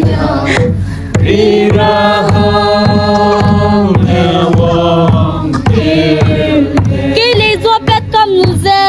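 Music: a song with long-held sung notes over a steady drum beat.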